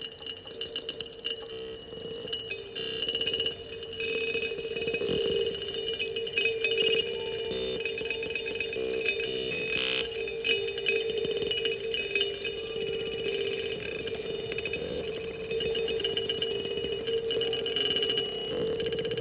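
Kalimba (thumb piano) played close to a microphone and layered with live electronics, its plucked notes merging into a steady ringing drone at a lower pitch and a fluttering high tone that run on unbroken.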